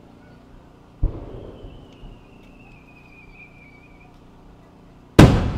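Japanese aerial firework shell fired from a mortar: a sharp thump about a second in, then a high whistle that slowly drops in pitch as the shell climbs, and a very loud burst bang near the end that rolls away in a long echo.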